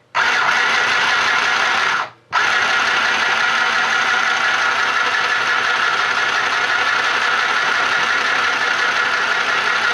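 Mini portable electric sewing machine running under its foot switch, a steady fast mechanical whirr; it stops briefly about two seconds in, then starts again and runs on.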